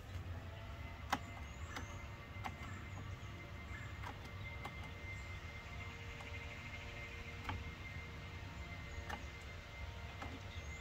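Faint, scattered clicks of the Honda GoldWing GL1800's dash switch buttons being pressed and released, about eight in all, over a low steady hum.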